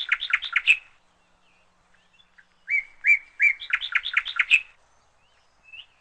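A songbird singing: a phrase of a few clear, evenly spaced notes that runs into a quick trill, heard near the start and again about three seconds in, with a short faint call near the end.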